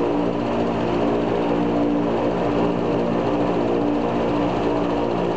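Il-14's left Shvetsov ASh-82T fourteen-cylinder radial piston engine and propeller running steadily during a ground run-up, heard from inside the cockpit.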